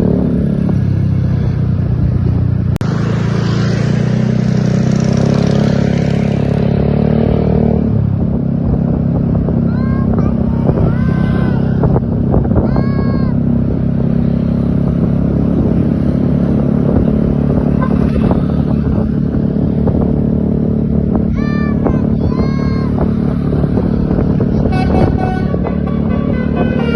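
Vehicle engines in road traffic running steadily, with a burst of hissing from about three to seven seconds in. Short high rising-and-falling tones sound a few times, around ten to thirteen seconds in and again around twenty-one to twenty-three seconds in.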